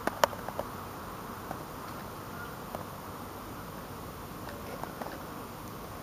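Steady outdoor background noise with a quick run of short sharp clicks right at the start, the loudest about a quarter-second in, and a few fainter single clicks later.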